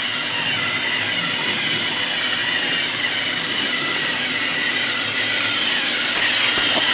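Several battery-powered TrackMaster toy train engines running on plastic track: a steady whir of small electric motors, getting a little louder near the end.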